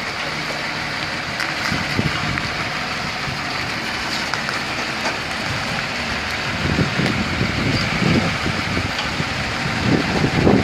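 Diesel engine of a truck tractor unit running as it reverses slowly, under a steady hiss; its low rumble grows stronger in the second half as it comes closer.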